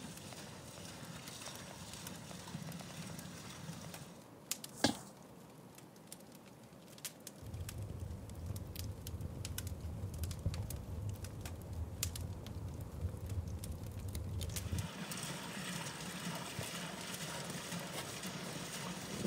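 Wood campfire crackling under a large cooking pot, with sharp pops and snaps and a low rumble of flames through the middle stretch. In the last few seconds a steady hiss takes over.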